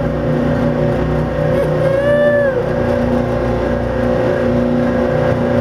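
Tugboat diesel engines running hard at racing speed, a steady droning hum.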